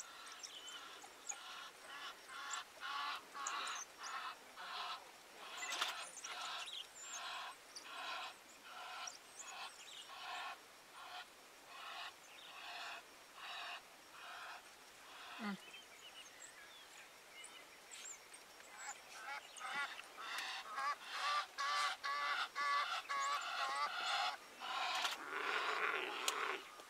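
African wild dog pack twittering over a kill: a long string of short, high chirping calls, about two a second. The calls grow louder and busier about two-thirds of the way through.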